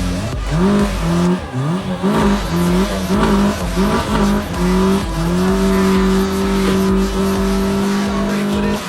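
Electronic dance music with a steady beat and a gliding synth lead that settles into one long held note about halfway through.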